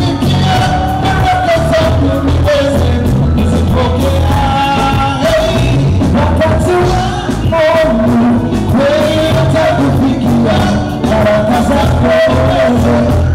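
Live gospel music: two male lead vocalists singing over backing singers and a band of drums, bass guitar and keyboard, with a strong, steady bass line.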